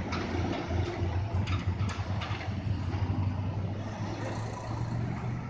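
Diesel engines of concrete mixer trucks and other trucks running as they pass close by on a bend, a steady low drone.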